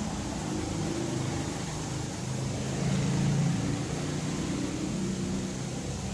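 Coloured pencil scratching as it shades back and forth on paper, over a steady low engine-like hum that grows a little louder around the middle.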